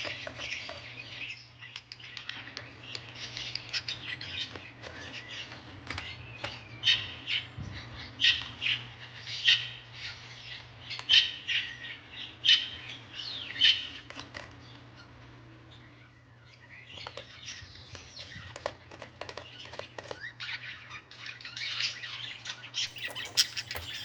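Small birds chirping and squawking in short repeated calls, thickest in the middle, over a steady low hum.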